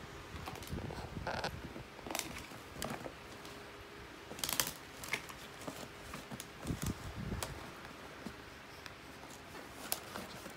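A dog tearing and chewing at a wrapped gift: wrapping paper and the box crinkling and ripping in irregular bursts, loudest about four and a half seconds in.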